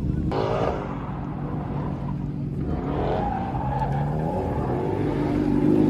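A car doing donuts in a burnout. Its engine revs up and down while the tires skid and squeal on asphalt. The revs surge sharply about a third of a second in and climb again about halfway.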